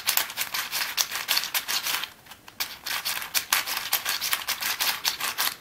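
Plastic layers of a Cube4You 3x3x7 cuboid puzzle clicking and clacking in quick succession as they are turned fast by hand, with a brief pause about two seconds in.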